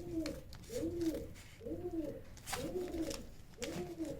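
Domestic pigeon cooing: a steady run of about five soft, rising-and-falling coos, roughly one a second.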